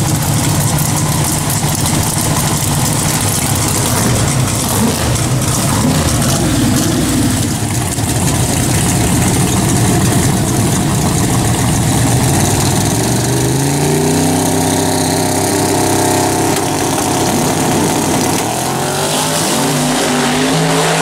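Small-tire drag car's engine running loud at the starting line. About twelve seconds in it launches, and its pitch climbs, levels off, then climbs again as it pulls away down the track.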